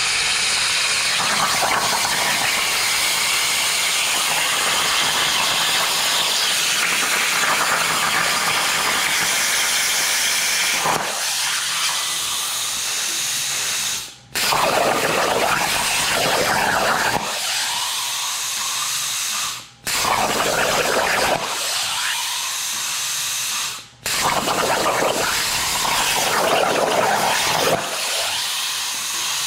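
Hypertherm Powermax plasma cutter on a CNC table cutting thin stainless steel sheet: a loud, steady hiss of the plasma arc and its air. It cuts out briefly three times and starts again.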